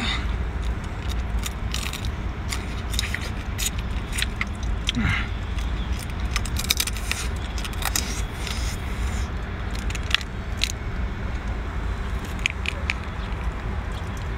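Cooked crab being pulled apart by hand, its shell cracking and snapping in many sharp clicks, with eating sounds, over a steady low rumble.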